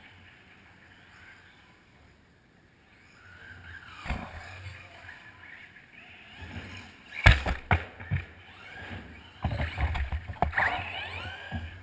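Radio-controlled cars driving on carpet close by: motor whine that rises in pitch, tyre and chassis noise, and sharp knocks from the cars hitting things. A single knock comes about four seconds in, two loud knocks follow past the middle, and a busy burst of knocks and rising whines comes near the end.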